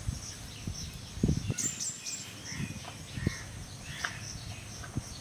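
Hands kneading flour dough in a steel bowl, giving soft, irregular thumps and knocks about a second apart, with birds chirping and calling in the background.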